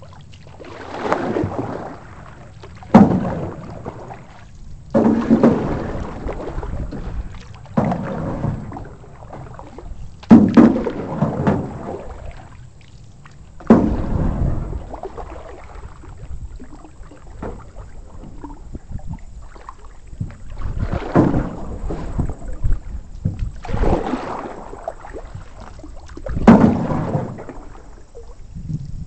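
Canoe paddles stroking through the water, a splashing swish about every two to three seconds, several strokes opening with a sharp knock, with a quieter stretch of gliding in the middle.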